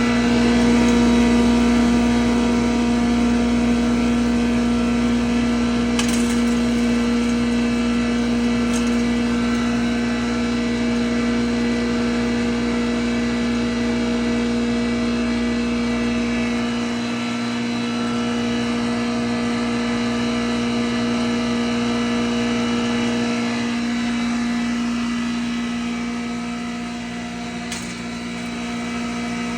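Wheat bran grinder machine running steadily: a constant machine hum with a strong steady tone, and a few sharp clicks.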